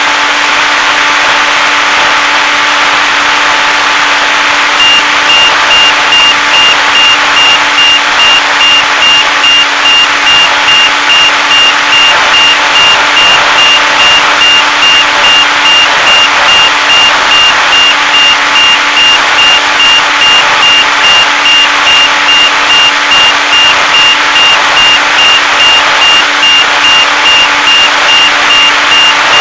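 Electric motor and propeller of a HobbyZone Super Cub RC plane running steadily, with rushing air over the onboard camera's microphone. From about five seconds in, a high electronic beep repeats evenly, about one and a half times a second.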